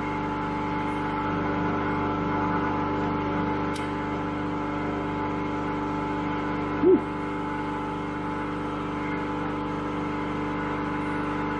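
Steady hum of a running workshop machine at an even level, with one short squeak about seven seconds in.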